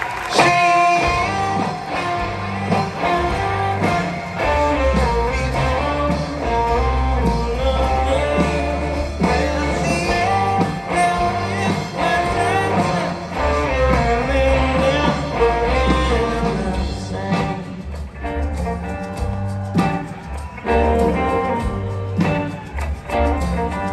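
Live blues-rock band playing: electric guitar lines over heavy bass and drums, without a clear sung line.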